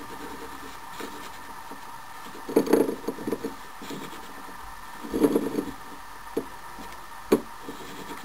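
Metal lathe spindle turned slowly by hand, the cutting tool scraping an arc into the workpiece in two short scratchy spells, with a few sharp metal clicks. A steady faint hum runs underneath.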